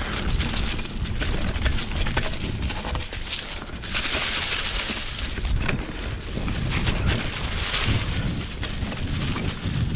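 Wind buffeting the camera microphone as a 2020 Specialized Pitch mountain bike descends a dirt trail covered in dry leaves, the tyres rolling and crunching through the leaves and the bike rattling over bumps. The hiss gets louder about four seconds in and again near eight seconds.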